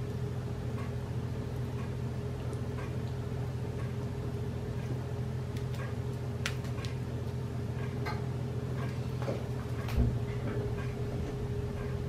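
Silicone spatula spreading a thick creamy mixture in a glass baking dish: scattered light clicks and taps at irregular intervals over a steady low hum, with one dull thump about ten seconds in.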